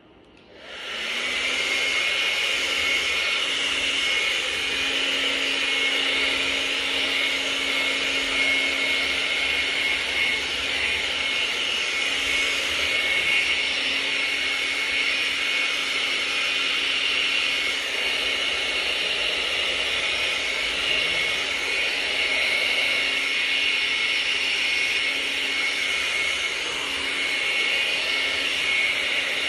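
Hair dryer switched on about half a second in, its motor spinning up, then running steadily with a constant hum and hiss.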